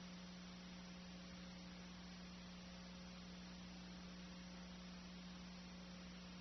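Near silence: a steady low electrical hum under even hiss, with no game sound.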